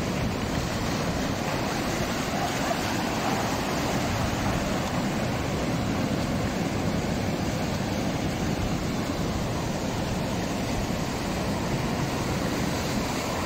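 Rough sea surf breaking and washing over a rocky shoreline, a steady rush of noise with no let-up.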